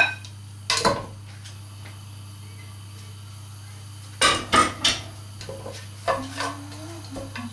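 Plastic spatula knocking and scraping against a plate and a non-stick pot as sliced onions go into the pot: sharp clatters near the start, a quiet stretch, then a quick run of knocks about four seconds in and a few more toward the end, over a steady low hum.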